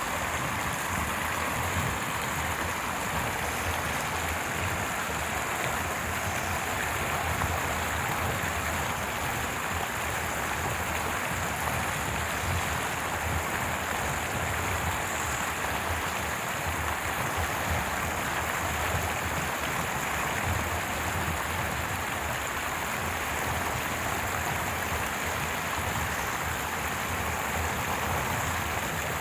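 Stream (small river) flowing, a steady, even rushing and babbling of water with a low rumble underneath.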